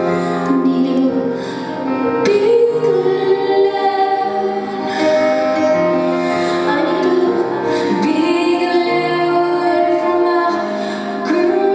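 A woman singing live to her own solo piano accompaniment, with long held notes over sustained piano chords.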